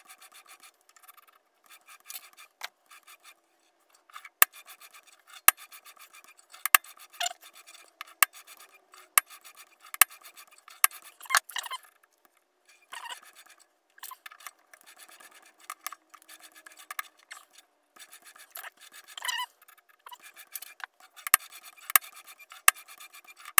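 Irregular sharp metallic clicks and knocks with scraping and rubbing in between, from adjusting the jaws of a four-jaw lathe chuck to centre a stainless steel bar.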